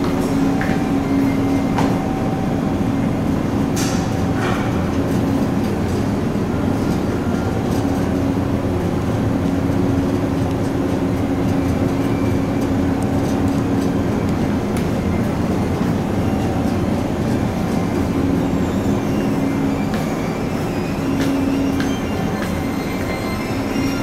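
Steady low drone and rumble of a car ferry's engines under way, heard inside the passenger deck, with a hum that fades in and out every few seconds.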